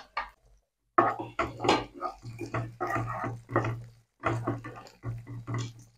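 Wooden spatula stirring chopped capsicum and onions in a non-stick kadai, scraping and knocking against the pan in quick, irregular strokes while the vegetables sizzle in a little oil. The stirring starts about a second in, after a brief lull.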